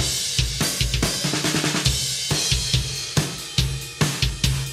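Recorded drum kit playing back in a steady beat: kick, snare, hi-hat and cymbals, with the snare thickened by a gated white-noise and 100 Hz tone layer sent through a non-linear reverb, the 80s gated-snare trick.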